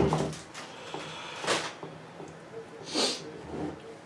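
A hard plastic camera case being handled on a tabletop: a knock right at the start, then a few short rubbing and shuffling sounds as it is pushed and turned over.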